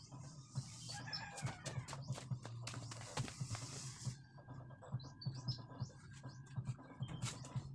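Faint, scattered taps and clicks of hand work at a concrete hollow-block wall, with birds chirping in the background.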